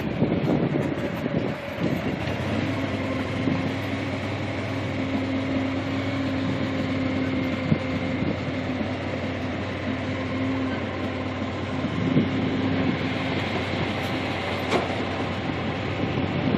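A vehicle running steadily as it rolls along, a constant hum over a noisy rush, with a few light knocks.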